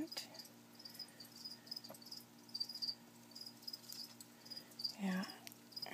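A cricket chirping faintly in short, high, repeated pulses, with a brief low human voice sound about five seconds in.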